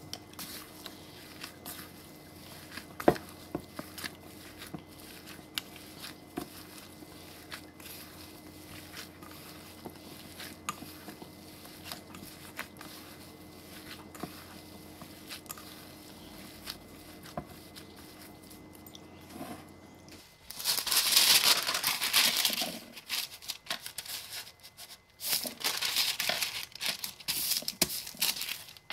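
A sticky burger mixture being kneaded by hand in a stainless-steel bowl: faint soft squishes and small clicks over a low steady hum. About twenty seconds in, a sheet of paper is handled and folded, loud crinkling in bursts.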